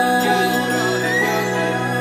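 Instrumental passage of a Hindi devotional song to Shiva, between sung lines: steady held notes over a low drone.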